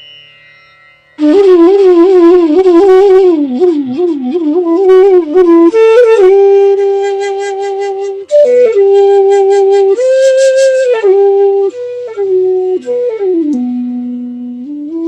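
Bansuri (North Indian bamboo flute) playing a raga phrase. It comes in about a second in with wavering, ornamented notes sliding between pitches, then moves to long held notes, and near the end it drops to a low held note.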